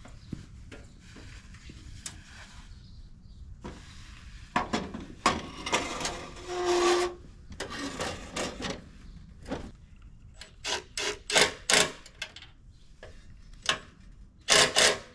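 Metal meter-main enclosure being handled and held up against a wooden pole: irregular scraping and rubbing, then a string of short, sharp scrapes and knocks in the second half.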